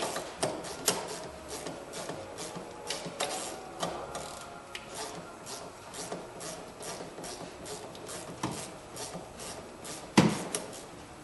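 Hand ratchet clicking in quick, uneven runs as a 10 mm bolt is worked loose, with one sharp knock about ten seconds in.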